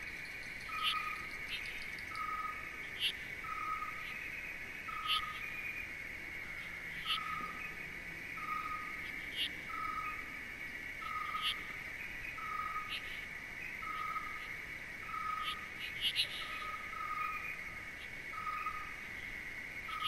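Nature ambience: a steady high insect trill, with a short mid-pitched call repeating about every two-thirds of a second and scattered brief high chirps.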